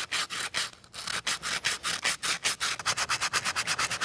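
3D-printed ABS plastic part being hand-sanded with 100-grit sandpaper: quick back-and-forth rasping strokes, about six a second, with a short pause a little under a second in.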